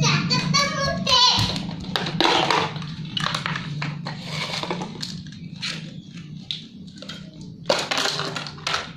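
Young children's voices and babbling, high-pitched near the start, with plastic toys clattering on a tiled floor over a steady low hum.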